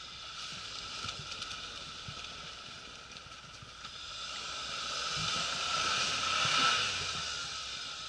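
Suzuki Jimny driving through a slushy, water-filled rut in deep snow: a hissing noise of engine and tyres churning snow and slush. It swells to its loudest about six and a half seconds in, then eases.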